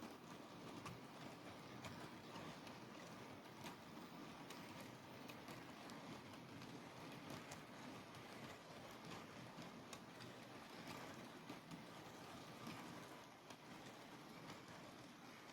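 OO gauge model train running on the track: a faint steady motor hum with many small irregular clicks from the wheels over the rails and joints, getting quieter near the end.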